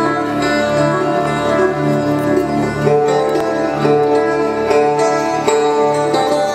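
Live instrumental music: a long-necked string instrument plays a melody over sustained tones and a low note pulsing about twice a second.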